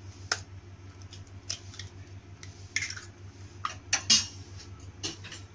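A hen's egg being cracked over a stainless steel bowl of cubed elephant yam: a series of short, sharp taps and clicks of shell and metal, the loudest about four seconds in.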